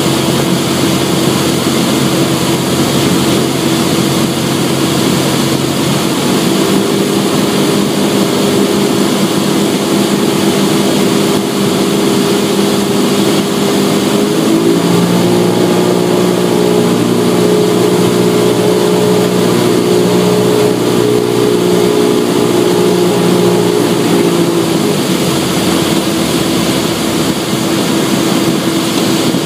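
Cessna 172's four-cylinder Lycoming engine and propeller running steadily, heard from inside the cockpit. The engine note changes about six seconds in, shifts again about halfway through, and settles back near the end.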